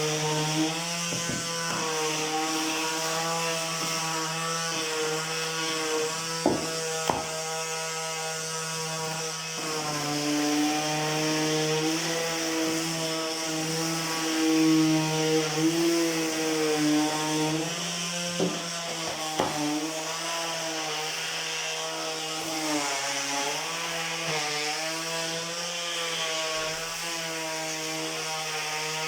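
Parkside PAMS 12 A1 cordless palm sander running steadily, its 180-grit paper rubbing on a birch board under two-handed pressure. The motor hum wavers slightly in pitch as the load changes, with a few sharp clicks, two about six to seven seconds in and two around nineteen seconds.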